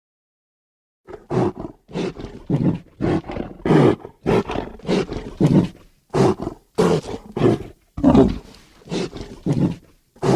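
Designed dromaeosaurid (raptor) dinosaur vocal effect: a rapid string of short, harsh roaring calls, two or three a second, starting about a second in.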